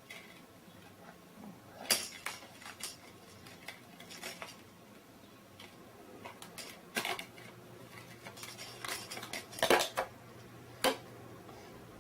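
Hard objects clinking and clattering together in scattered knocks, about ten in all, the loudest near the end.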